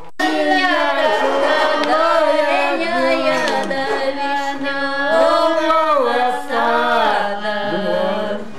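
People singing a song together at the table, with a woman's voice to the fore. The melody bends up and down and the singing carries on with only a brief break past the middle. A tipsy sing-along.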